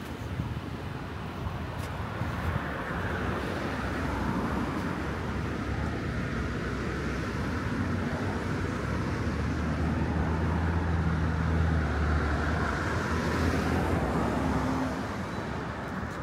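Motor vehicle traffic passing, its low hum swelling through the middle and easing off near the end.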